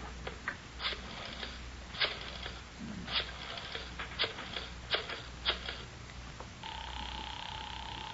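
Footstep sound effects, sharp clicks about a second apart, then a steady telephone tone on the line lasting about a second and a half near the end.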